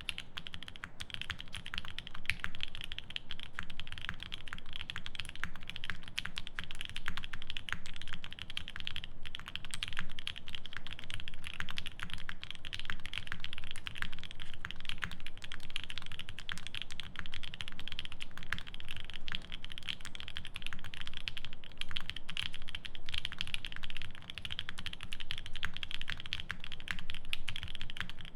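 Fast, continuous typing on a 7V mechanical keyboard with a polycarbonate plate, lubed C3 Banana Split linear switches and GMK keycaps: a dense stream of key clicks. The typing pauses briefly twice.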